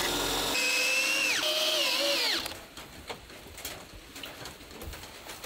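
Electric drill boring holes into a wooden workbench plank: the motor's whine drops in pitch twice as the bit bites into the wood, then stops about two seconds in. After that, only faint scattered clicks remain.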